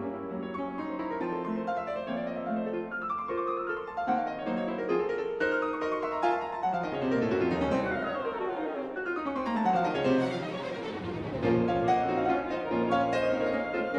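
Background music, a classical-style piano piece, with fast runs of notes falling in pitch midway through.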